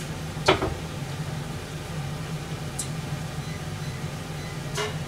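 Steady low hum of a running kitchen appliance, with a sharp knock about half a second in and a fainter click near the end.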